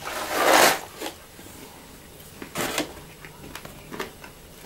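Popcorn bag rustling and crinkling as it is tipped up to the mouth, loudest in the first second, then a few short crackles as a hand rummages in the bag.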